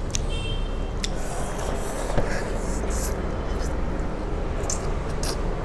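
Noodles being slurped and chewed straight from the plate, with several short slurps scattered over a steady low hum.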